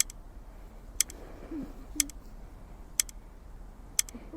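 A clock ticking once a second, each tick a sharp double click.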